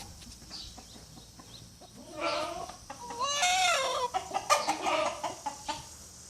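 Chicken calling: a short squawk about two seconds in, then a longer wavering call, followed by a few short clucks.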